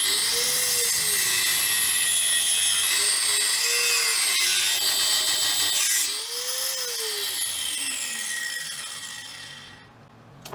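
A Kano angle grinder with a toothed wood-cutting blade, mounted in a homemade miter-saw jig, starts suddenly and runs with a high whine while cutting through a wooden board. About six seconds in the sound drops, then fades steadily as the blade winds down.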